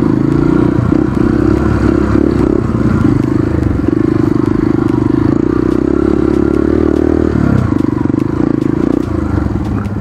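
Dirt bike engine running loud with the revs wavering as it is ridden, dipping briefly about seven and a half seconds in and then picking back up.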